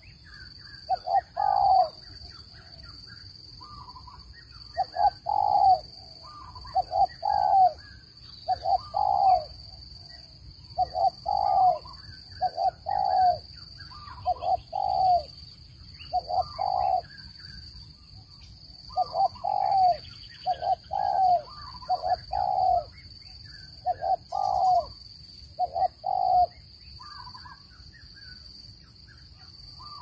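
Spotted dove cooing its phrase of two or three low, slightly falling notes, repeated every couple of seconds with a few longer pauses; this is the advertising call used as a decoy to lure doves into a trap. Faint higher chirping and a steady high-pitched tone sit behind it.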